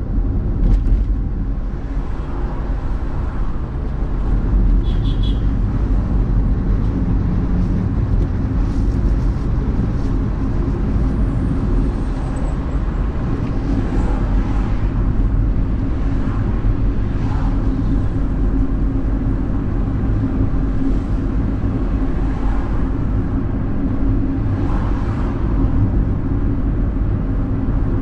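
Car driving along a city street: steady engine and road rumble heard through a dashcam inside the car, with a few faint, brief sounds of passing traffic.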